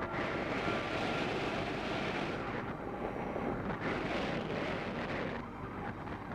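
Wind from the glider's airspeed rushing over the microphone in paragliding flight: a steady rushing noise that eases and picks up again several times.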